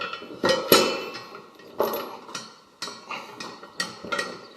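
Anchor chain and steel shackle clinking and knocking together as the shackle pin is tightened onto the chain: a series of sharp metallic clinks with a brief ring, the loudest just under a second in.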